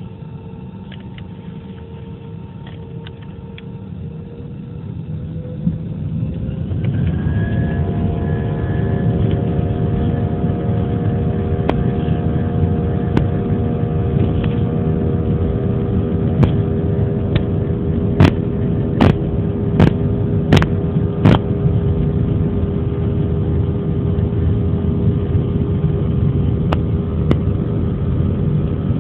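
Airbus A320-family turbofan engines heard from inside the cabin, spooling up to takeoff thrust about seven seconds in: a low rumble and a steady whine that get clearly louder as the takeoff roll starts. Midway through there is a run of about five loud thumps, under a second apart, from the wheels rolling over the runway.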